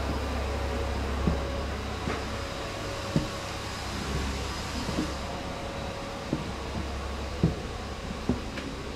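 A steady mechanical hum and hiss runs throughout, with seven soft knocks about a second apart, likely footsteps on the shed's concrete floor.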